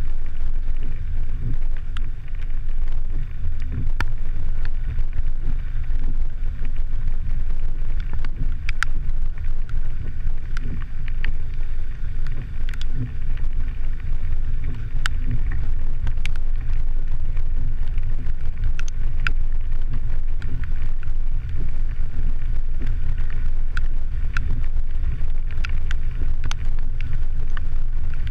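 Muffled low rumble and wind buffeting from a vehicle driving over a rough dirt and gravel road, picked up by a GoPro Hero 3 mounted on the hood, with scattered sharp ticks.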